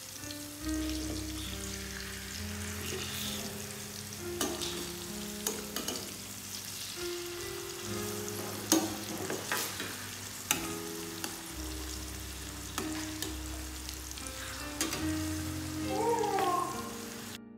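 Seer fish steaks shallow-frying in hot coconut oil in a steel pan, sizzling steadily. Sharp clicks and scrapes sound through it as a spatula and fork turn the pieces. Soft background music with held, piano-like notes plays underneath.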